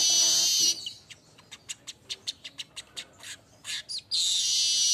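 Manyar weaver bird singing: a loud, buzzy, sizzling high song that breaks off under a second in. A string of dry, separate ticks follows for about three seconds, then the sizzling song starts again near the end.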